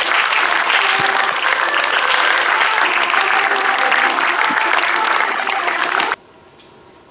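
Audience clapping steadily as a crowd, cut off abruptly about six seconds in.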